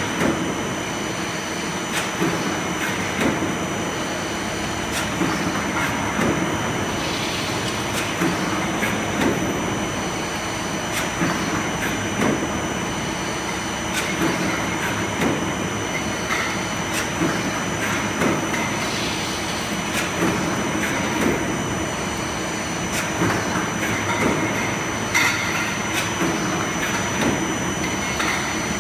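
Mechanical double-action power press running continuously, blanking and deep drawing stainless steel cups from coil stock. It gives a steady mechanical rattle and hum with a regular clank of the press strokes and a constant high whine.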